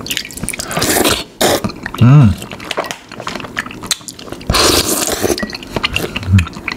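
Slurping and chewing spoonfuls of a milky cocktail with soft konjac jelly and fruit, with small spoon clicks, twice a longer noisy slurp, and a brief hummed "mm" about two seconds in and another near the end.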